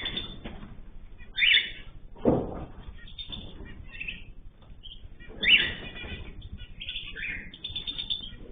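Cage birds chirping in short loud bursts, with a brief flurry of lower, rustling sound about two seconds in that fits wings flapping.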